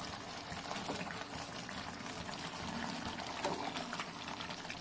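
A steel spoon stirring thick, wet mutton curry in a metal pot: soft slushing of the gravy with light clicks of the spoon against the pot.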